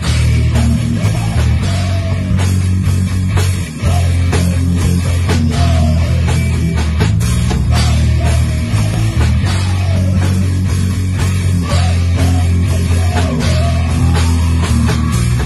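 Black thrash metal band playing a song live in rehearsal: heavily distorted electric guitar and bass riffing low and dense over a Pearl drum kit's drums and cymbals. The riff breaks off briefly about four seconds in and then starts again.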